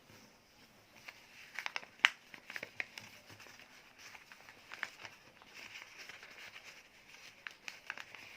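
Sheet of paper being handled and folded: soft crinkling with scattered sharp crackles and clicks as it is creased, the sharpest snap about two seconds in.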